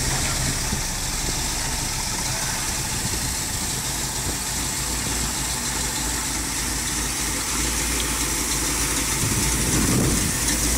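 Pickup truck engine running at a low, idle-like speed as the truck pulls away slowly, a little louder near the end as it passes close by.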